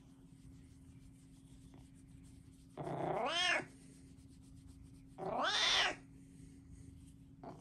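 A cat meows twice, each call under a second long and arching up then down in pitch.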